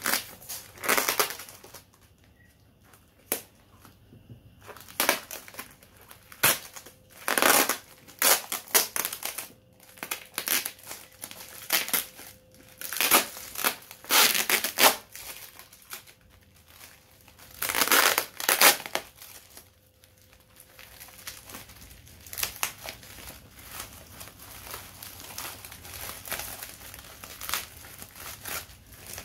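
Product packaging being unwrapped and handled by hand: irregular bursts of rustling and crinkling, the loudest just past the middle, with quieter, busier handling in the last several seconds.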